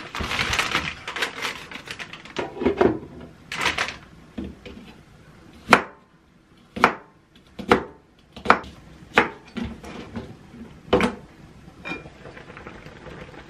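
Plastic bag rustling, then a knife chopping vegetables on a cutting board in slow single strokes, about one a second.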